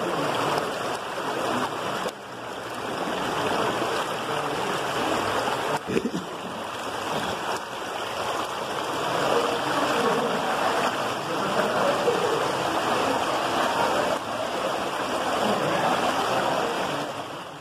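Underground cave stream rushing and churning over rocks: a steady, unbroken rush of water.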